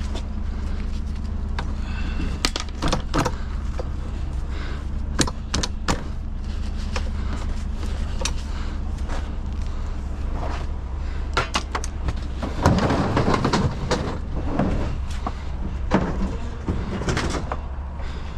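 Scattered metal clanks, knocks and rattles from scrap metal being handled and loaded onto a trailer, busiest about two-thirds of the way through, over a steady low rumble.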